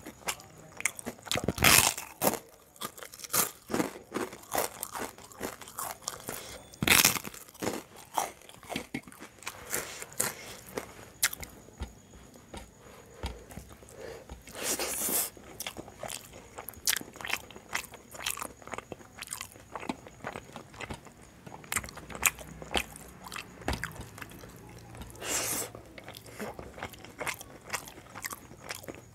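Close-miked eating: mouth sounds of chewing with repeated crunchy bites of crisp papad, the loudest crunches about two, seven, fifteen and twenty-five seconds in.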